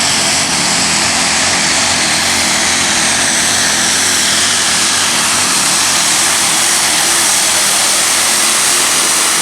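Engine of a Ford pulling vehicle running flat out under heavy load during a pull, loud and steady throughout.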